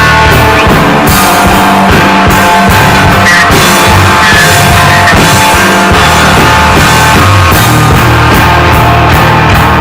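A rock band playing loudly and steadily, with electric guitars and a drum kit.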